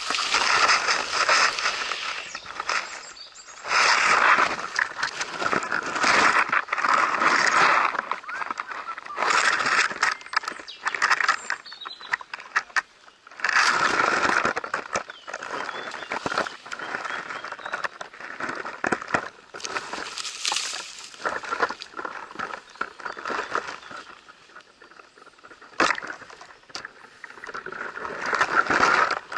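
Fir branches and needles scraping and rustling against a head-mounted camera as the wearer crawls through dense undergrowth, in irregular loud bursts with short lulls between. A couple of sharp clicks come near the end.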